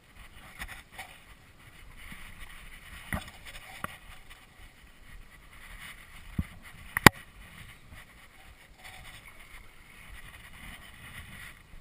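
Steady outdoor noise of wind and water around a wading fly angler, with four sharp clicks or knocks from handling the fly rod and line, the loudest about seven seconds in.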